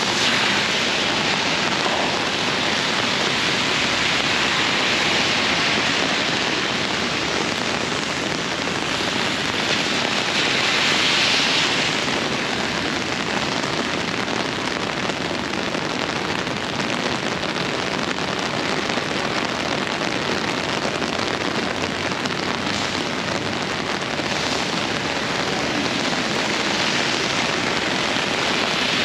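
Tropical-storm downpour falling steadily, a dense even hiss of rain, swelling briefly about eleven seconds in.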